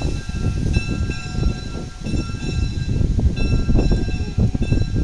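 Steam locomotive whistle sounding several blasts of about a second each as the engine approaches under steam, over the heavy rumble of the working locomotive.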